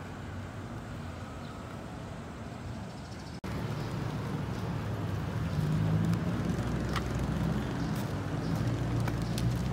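Street ambience of traffic hum with a car engine running. About three and a half seconds in there is a short dropout, then the low engine hum comes in louder, with a few faint clicks.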